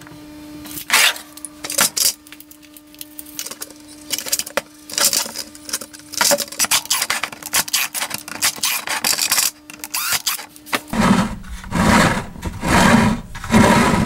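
Tools and parts being handled on a wooden workbench: scattered knocks, clicks and scrapes. Near the end, a cordless drill bores holes in a plastic bucket in four short loud bursts.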